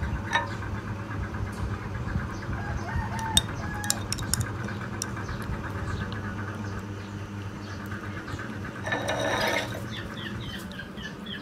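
Chickens clucking and calling in the background, with one louder call about nine seconds in, over a steady low hum.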